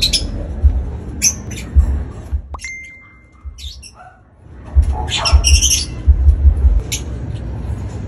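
Lovebirds calling in short, high-pitched chirps and squawks, in two clusters with a quieter gap between them. Low thumps come in bursts alongside the calls.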